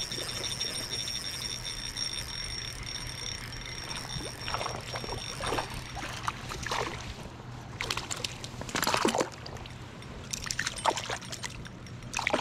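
Water splashing in short irregular bursts, stronger towards the end, over a steady high-pitched whine that stops about halfway through.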